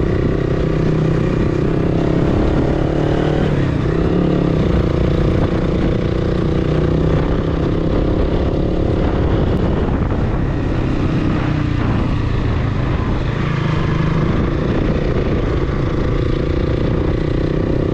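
Motorcycle engine running steadily while riding at about 30–35 km/h, over a constant rush of wind and road noise.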